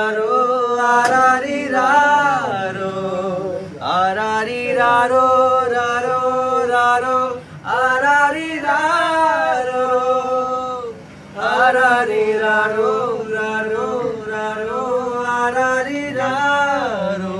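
A man singing alone and unaccompanied, in long held, ornamented melodic phrases, pausing for breath about 7.5 and 11 seconds in.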